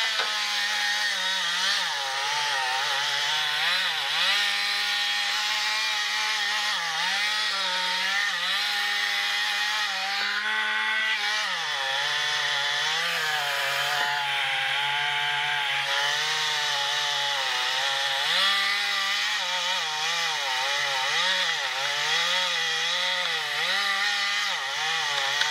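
Two-stroke Stihl chainsaw running hard while cutting into the base of a silver maple trunk for a felling cut. Its engine pitch repeatedly dips and wavers as the chain loads up in the wood, then drops lower about halfway through.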